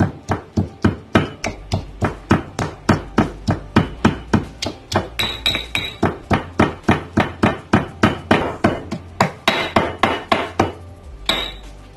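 Stone pestle pounding green chillies, coriander and mint in a stone mortar, about three even knocks a second, stopping shortly before the end.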